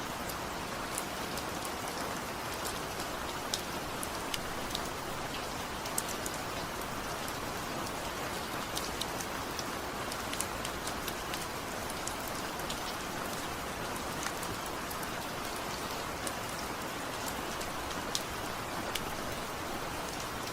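Heavy rain falling steadily without thunder, a constant hiss dotted with sharp individual drop ticks.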